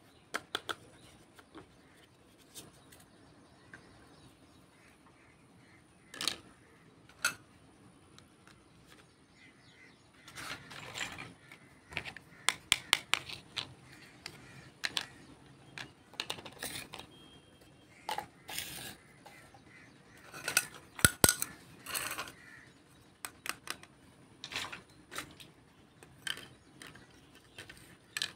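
Small plastic toy kitchen pieces being handled and set down on a hard tabletop: scattered light clicks and taps, sparse at first, then in quick clusters from about ten seconds in.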